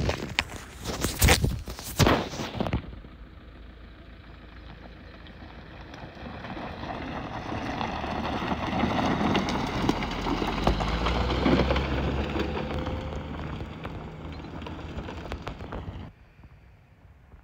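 A few sharp knocks, then a motor vehicle approaching and passing, its noise building over several seconds and fading away again.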